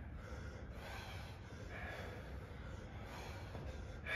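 Faint heavy breathing from a man exerting himself through weighted thrusters, with short sharp exhales repeated every second or so.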